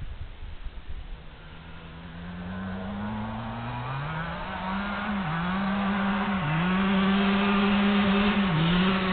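A motor vehicle's engine pulling away and speeding up, its pitch climbing steadily and then holding, with three brief dips in pitch, growing louder throughout.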